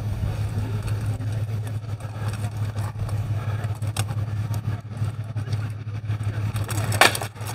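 Armored combat with rattan weapons: a few faint knocks, then one sharp crack of a blow landing about seven seconds in, over a steady low hum.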